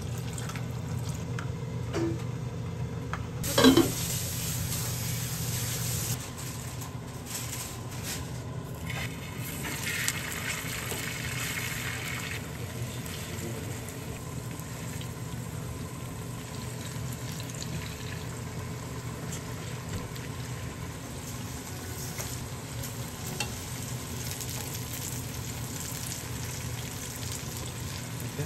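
Tofu slices and egg-coated king oyster mushroom slices sizzling as they pan-fry in oil for jeon. A single loud metal clank comes about four seconds in.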